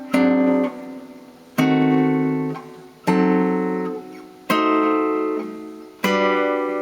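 Guitar playing five chords, each struck and left to ring about a second and a half apart: a run of diminished chord shapes moving one after another, outlining a D7 flat 9 under the melody.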